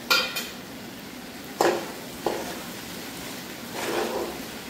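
A metal spatula knocking and scraping against a metal pan as spiced young jackfruit is stirred, over a light sizzle of frying. A sharp ringing clink at the start, two more knocks around the middle, and a longer scrape near the end.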